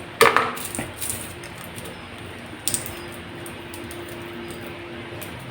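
Handling noise from shallots and a kitchen knife on a cutting board: a sharp knock just after the start, a smaller one a little under a second in, and a light click near three seconds in, over a faint steady hum.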